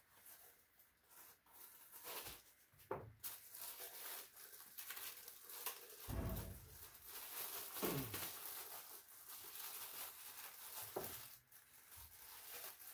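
Plastic bag crinkling and rustling as a boxed car-audio subwoofer is unwrapped by hand, with a couple of dull knocks about six and eight seconds in as it is handled on the bench.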